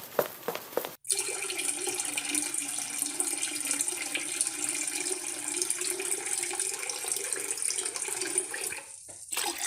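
Steady rush of running water that starts abruptly about a second in, after a few short clicks, and stops shortly before the end.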